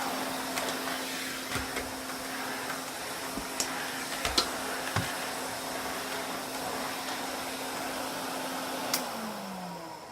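Hoover Constellation 862 canister vacuum cleaner, fitted with an original Constellation motor, running with a steady hum and a few knocks. Near the end there is a sharp click, and the motor then winds down with a falling whine.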